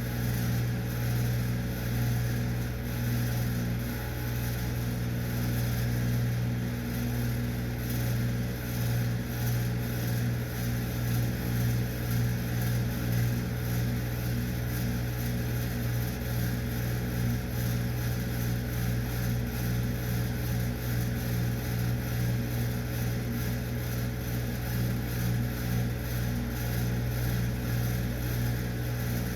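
Rusted desktop fan running, a steady low mechanical hum with a slight waver in level.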